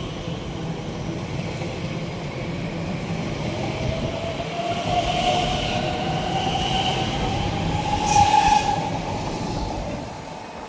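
Elizabeth line Class 345 electric train pulling out and accelerating away, a low rumble of wheels on rail under a whine that rises steadily in pitch, with a short sharp clack about eight seconds in. The sound fades near the end as the train leaves.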